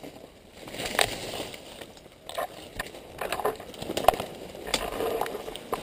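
Footsteps and body pushing through dry brush: leaves rustling and twigs crackling and snapping underfoot at irregular intervals.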